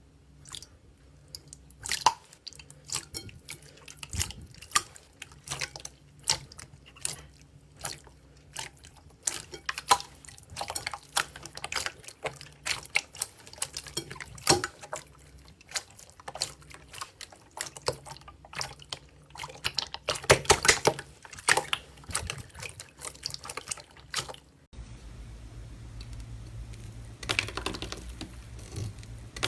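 Slime being squeezed and poked, making irregular wet clicks and sticky pops. A denser run of crackling pops comes near the end over a steady low hum.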